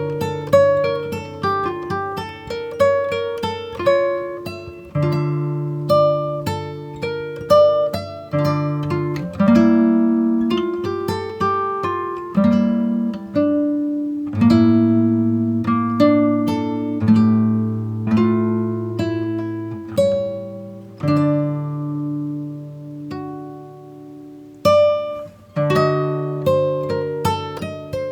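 Instrumental background music of plucked guitar notes over held bass notes.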